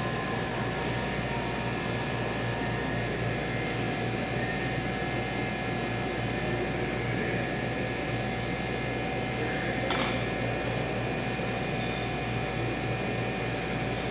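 Steady machine hum of air-conditioning and kitchen cooling equipment, with a couple of faint constant tones in it. A single short click about ten seconds in.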